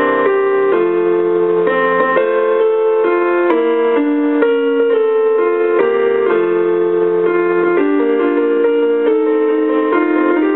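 Instrumental piano music: a slow melody of held notes over chords, with no singing.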